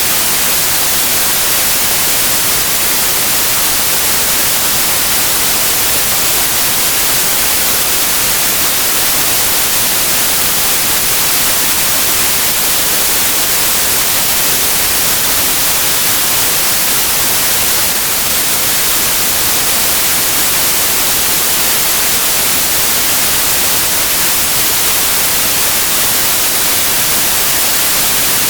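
Steady white noise, an even hiss strongest in the highs, with no melody, rhythm or instrument, played as a sleep sound for babies.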